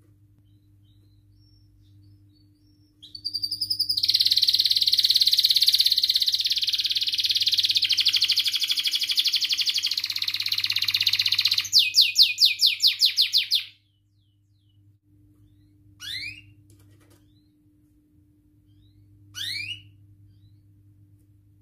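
Domestic canary singing. A long, dense rolling trill runs for about eight seconds, then breaks into a run of quick rising notes that stops suddenly. Two short rising chirps follow a few seconds apart, over a faint steady low hum.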